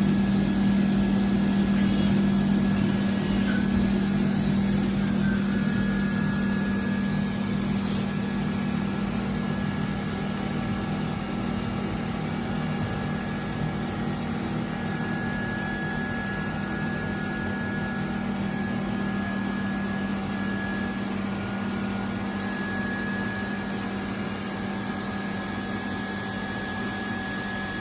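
Rewitech 230 CNC internal grinding machine running: a steady deep motor hum with several high spindle whines on top. A high tone glides downward a few seconds in, and the whole sound slowly grows quieter.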